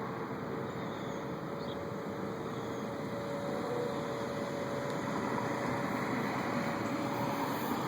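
A steady, distant droning sound: an even wash of noise with a faint held humming tone through it, of unknown origin.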